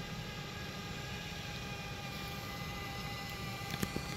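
DJI Mavic quadcopter's propellers humming steadily as it hovers and descends, with a couple of faint clicks near the end.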